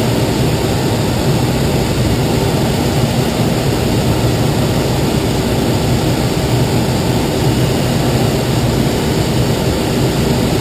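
Steady rush of air in a glider's cockpit under aerotow, with the tow plane's engine droning ahead.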